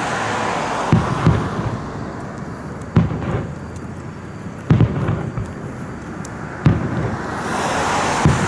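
Fireworks bursting: about half a dozen sharp bangs at irregular intervals, each with a short low boom after it, over a steady rushing background noise that swells near the end.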